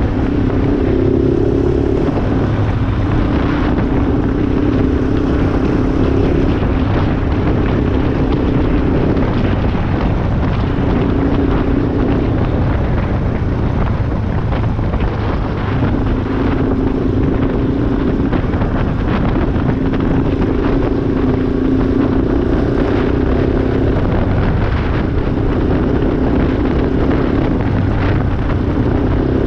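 Yamaha Raptor 350 quad bike's single-cylinder four-stroke engine running under way, its note shifting up and down every few seconds as the rider works the throttle, over a steady rush of wind noise.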